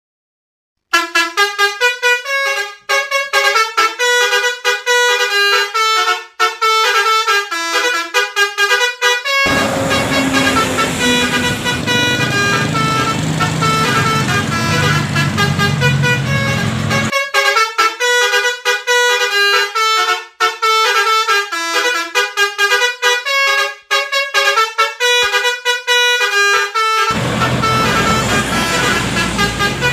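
Basuri 'telolet' bus horn playing quick melodic tunes of rapidly changing notes, starting about a second in. Some stretches are clean horn tones alone; in others an engine rumbles beneath the tune with street noise.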